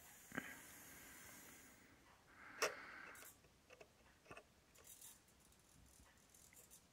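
Near silence with a few faint clicks and light rattles, the loudest about two and a half seconds in, from a 1:32 scale RC tractor and its plastic cultivator rolling over a tiled floor.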